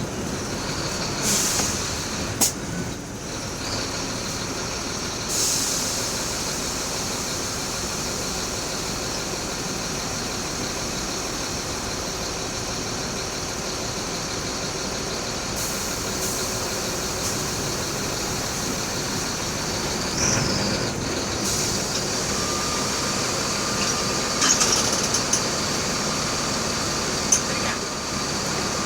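Mercedes-Benz OF-1724L city bus running steadily, with engine and road noise throughout. Several short hisses of released air come about 1, 5, 20 and 24 seconds in, typical of the bus's air brakes, and a thin steady whine joins in during the last few seconds.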